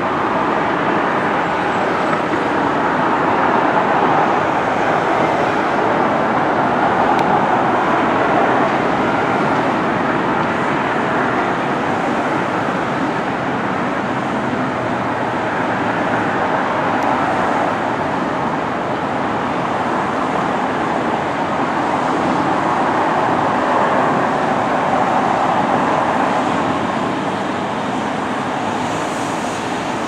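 Steady rushing noise of moving vehicles that swells and eases several times.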